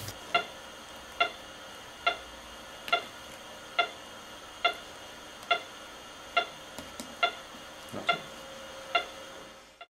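Pulse oximeter on an anaesthetic patient monitor beeping once per heartbeat at a steady rate of about 70 a minute, each beep a short pitched tone. A few faint clicks from handling the airway equipment come between beeps about two thirds of the way through.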